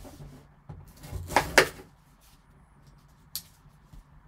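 A cardboard trading-card box being handled on a tabletop, with a folding knife held in the same hand: scattered rustles and knocks, the loudest a pair of sharp knocks about a second and a half in, and a short sharp click near the end.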